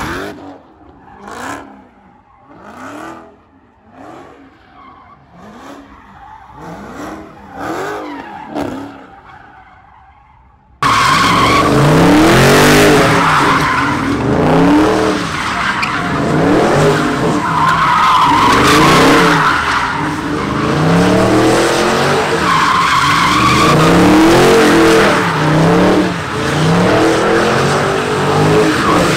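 A Dodge Charger doing donuts: its engine revs up and down every second or two while the rear tyres screech and skid on the pavement. The sound jumps suddenly much louder about eleven seconds in.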